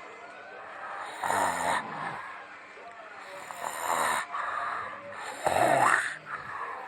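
Loud snoring: three rasping snores about one to two seconds apart.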